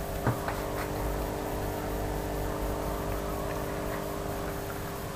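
A steady mechanical hum of several constant tones over a low rumble, easing a little near the end, with a faint knock just after it begins.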